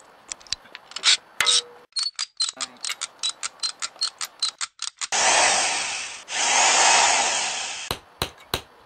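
Socket ratchet clicking in quick runs, about four or five clicks a second, as a bolt is turned on a garden-tractor engine. Then come two longer rushing noises, each a second or more, which are the loudest sounds, and a few last clicks near the end.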